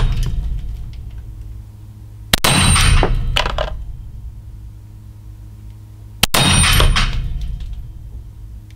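Two single 9x19 pistol shots from a Laugo Arms Alien, about four seconds apart, slow aimed fire. Each is a sharp crack with a long echoing decay, over a steady low hum.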